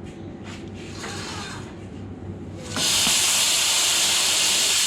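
Plasma cutter striking its arc about three seconds in and cutting sheet steel with a loud, steady hiss, after a low hum.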